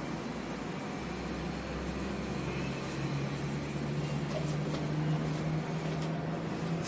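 Motor vehicle engine running with a steady hum, dropping its lowest note after a couple of seconds and settling into a steadier, slightly higher hum.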